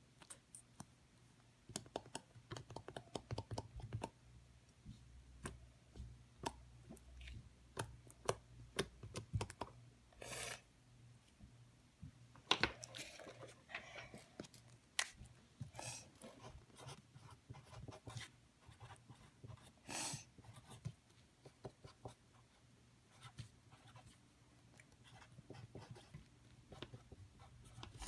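Slime being squished and worked by hand, making irregular sticky clicks and crackles, with a few longer squelches.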